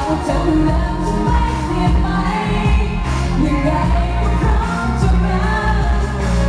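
A Thai pop song sung by a woman into a microphone over a loud backing track with heavy bass and a steady beat, amplified through PA speakers.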